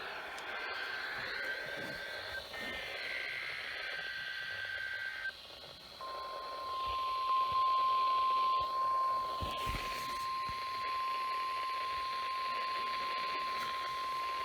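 NOAA Weather Radio receiver playing the required weekly test over a hiss of radio static. It starts with warbling two-tone digital header bursts, then after a short gap, about six seconds in, the steady 1050 Hz warning alarm tone sounds and holds.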